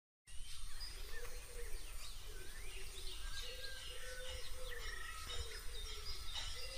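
Birds chirping and calling over a steady low rumble and hiss, starting after a moment of silence; a series of short arched lower calls repeats throughout.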